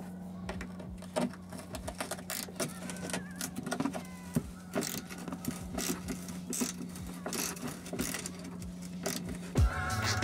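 Ratchet wrench clicking in short irregular runs as a 10 mm bolt is undone in a car's wheel arch, over a low steady hum.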